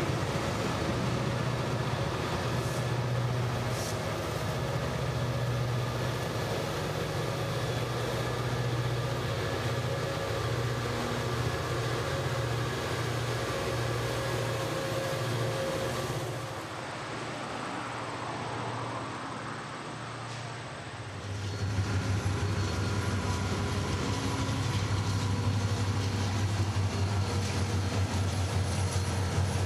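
Norfolk Southern diesel locomotives passing close by, their engines giving a steady low drone. It drops off around 17 seconds in, and from about 21 seconds a second set of locomotives passes, louder.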